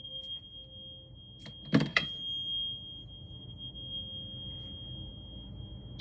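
Metal tuning fork ringing with a steady high tone, struck again with two sharp knocks about two seconds in and once more at the very end.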